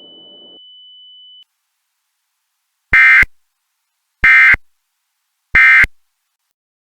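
Three short bursts of Emergency Alert System SAME digital data tones, a harsh buzzing screech about a second and a half apart: the End of Message code that closes an EAS alert. Before them, a faint high steady tone cuts off about a second and a half in.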